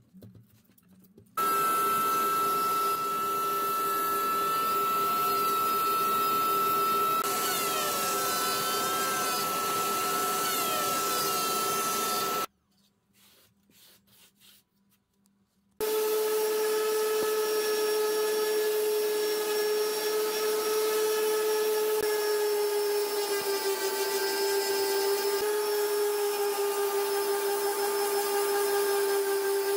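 Electric power sanding of a cured epoxy resin and wood panel, a steady motor hum with the pad scrubbing the surface. It runs in two long stretches, starting about a second in and stopping about twelve seconds in, then starting again after a few seconds' pause with a slightly different pitch; the second stretch is a random orbital sander.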